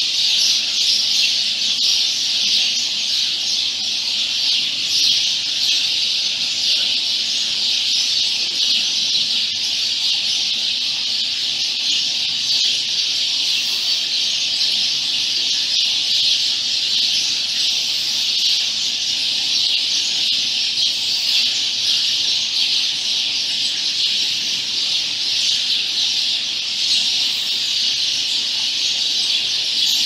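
A large flock of birds calling together in trees: a dense, steady chorus of many overlapping high chirps and chatters.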